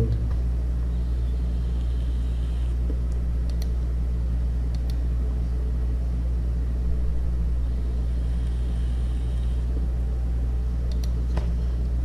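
Steady low hum of background noise from the recording setup, unchanging throughout, with a few faint clicks at scattered moments.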